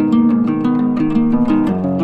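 Instrumental background music: plucked strings picking out a quick run of melody notes.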